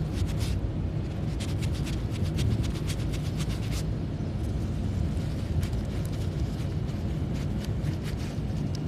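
Fingers rubbing silicone-coated ripstop nylon fabric in quick scratchy strokes, the friction that pushes the fibres back to close a small puncture, over a steady low rumble. The rubbing is dense for about the first four seconds, then only a few separate scratches follow.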